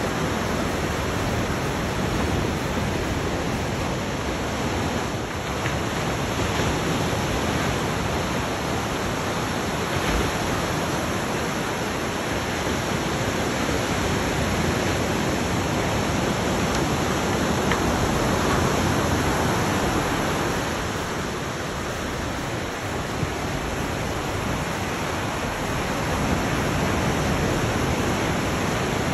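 Ocean surf: waves breaking and washing in close by, a steady rushing noise that swells and eases gently.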